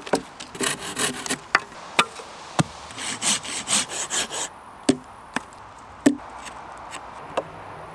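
Coarse-toothed hand saw cutting into a log in quick back-and-forth strokes, in two runs, with several sharp wooden knocks between and after them.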